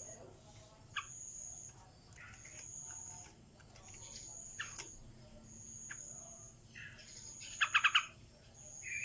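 Yellow-vented bulbul giving short, scattered chirps, then a quick run of four loud notes near the end. A short, high, even tone repeats about every second and a half behind it.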